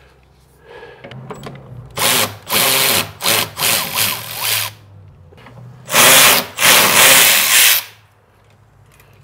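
Cordless power tool spinning out the two 10 mm bolts that hold the door tweeter bracket. It runs in short spurts from about two seconds in, then in one longer run near the end.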